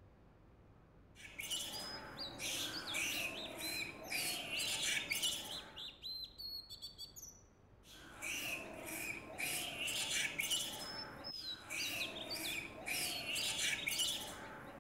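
A busy chorus of small birds chirping and twittering, starting about a second in. Around the middle it thins to a few thin high whistles and clicks, then the chorus resumes and cuts off abruptly at the end.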